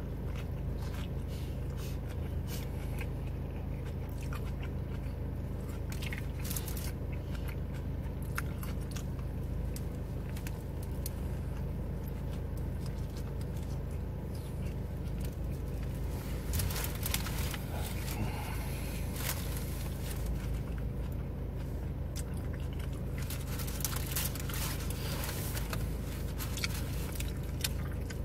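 A man biting into and chewing a loaded sandwich, with many short crunches and wet chewing sounds, thickest about halfway through and again near the end, over a steady low hum.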